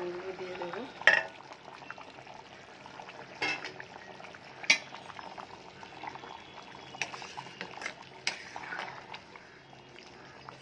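Egg curry simmering in a cooking pot on the stove, with a metal spoon clinking against the pot several times as it is stirred.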